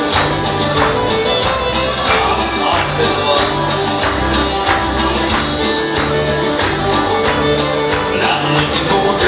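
Instrumental break of an up-tempo country song, with string instruments playing over a steady beat.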